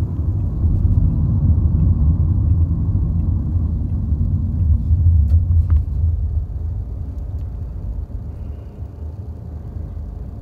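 Low road and engine rumble inside a moving car's cabin, steady for the first few seconds and growing gradually quieter after about six seconds.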